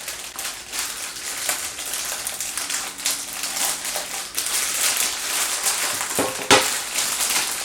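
Close crunching and crackling from snacks being handled and eaten, with one sharp knock about six and a half seconds in.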